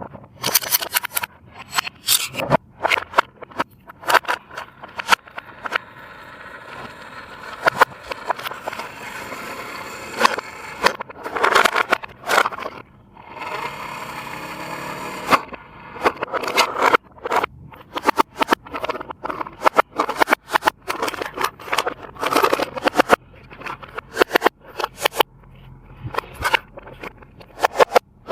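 Plastic toy and packaging being handled: a long run of sharp clicks, crackles and scrapes.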